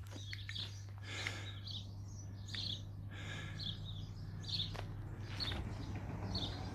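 Small birds chirping in short repeated calls, several a second, over a steady low hum.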